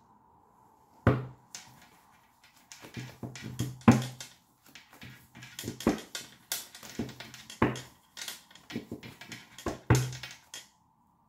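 Tarot deck being shuffled by hand: a run of irregular card slaps and riffles, the sharpest about 1, 4, 6, 7.5 and 10 seconds in, stopping shortly before the end.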